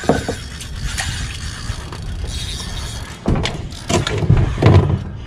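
Penn Pursuit III 4000 spinning reel being cranked while a hooked fish is fought, with irregular clicks and a few louder knocks from handling the rod on the kayak near the end.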